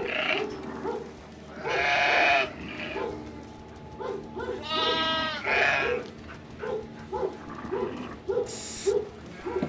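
Lambs bleating: one long bleat about two seconds in, then two more close together around five seconds.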